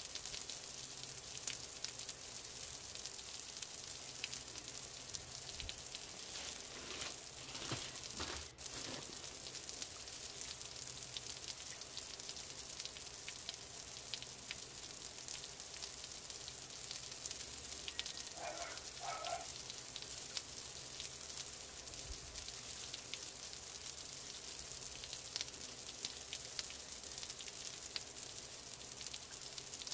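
Steady faint hiss with scattered light crackles, with a few brief soft sounds about two thirds of the way through.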